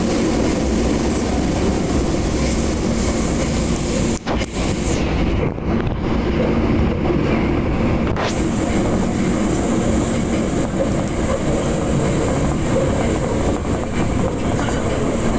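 Osaka Metro Midosuji Line subway train running at speed through the tunnel, heard from inside the car: a steady loud rumble with a high whine that drops out for a few seconds near the middle.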